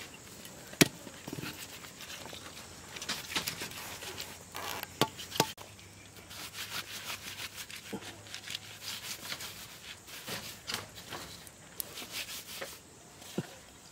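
Hands scratching and scraping at dry, dusty earth: a run of small clicks and scratchy rubbing noises, with a few sharper knocks, the clearest about a second in.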